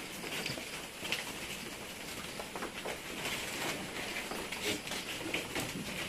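Goats browsing on a bundle of leafy branches: leaves rustling and stems being tugged, with scattered small clicks and crackles.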